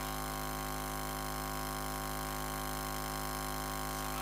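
A steady electrical hum of several constant tones from the public-address sound system, unchanging throughout.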